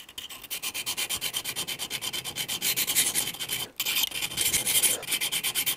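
Needle file rasping in quick, even back-and-forth strokes on a small metal knife-handle part held in a bench vise, taking off burrs so the part will fit snugly. The strokes break off briefly about two-thirds of the way through, then resume.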